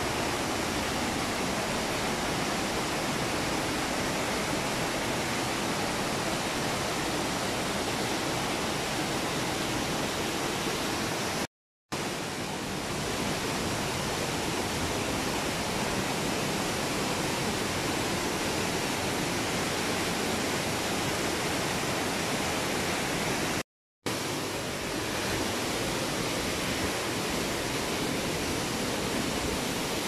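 Mountain stream and waterfalls in a rock gorge: a steady, dense rush of white water. It cuts to silence for a split second twice, once near the middle and once about three-quarters of the way through.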